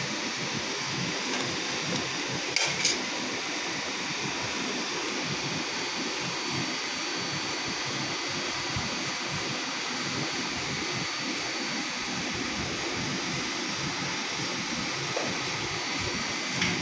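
Steady, even rushing background noise, like air-moving machinery running. Two sharp clicks about three seconds in, as a plastic bottle cap is twisted open.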